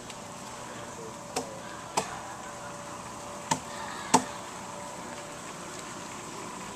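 Hand tool chopping into the wood of a log being hollowed out by hand into a dugout canoe hull: four sharp, irregularly spaced strikes.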